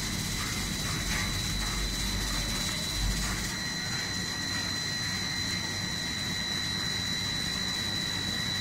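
Snack-pellet production line machinery running: a steady mechanical hum with a constant high whine. The low rumble drops away about three and a half seconds in.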